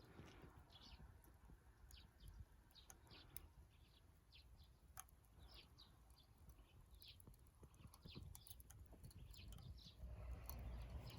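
Faint, repeated short bird chirps over a low background rumble, with scattered tiny clicks; a louder hiss rises near the end.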